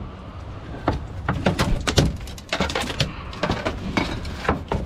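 Irregular knocks, thumps and clatters as a red drum and a landing net are handled on a fiberglass boat deck: the fish being pulled from the net and the net frame knocking on the deck.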